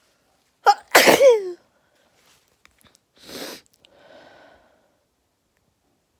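A person sneezes once, loudly. A short gasp comes just before the sneeze, whose voiced tail falls in pitch. Two quieter breaths follow a couple of seconds later.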